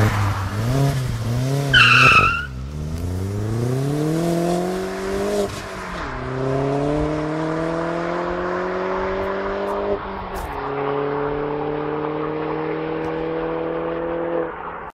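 Chipped Mk4 VW GTI 1.8T turbo four-cylinder through a 3-inch downpipe and 2.5-inch catback exhaust, revved in short blips at a standstill, then launched with a short tyre squeal and accelerated hard away. Engine pitch climbs through three gears, dropping at two upshifts, as the car pulls into the distance.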